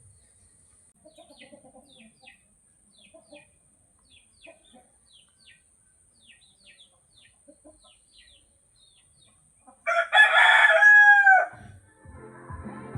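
A rooster crows once, loudly, about ten seconds in, a pitched call of about a second and a half that falls away at the end. Before it, faint quick bird chirps repeat on and off.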